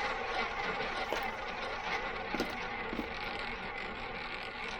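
Double-zero roulette wheel spinning: a steady rattle with a few sharper clicks, slowly fading.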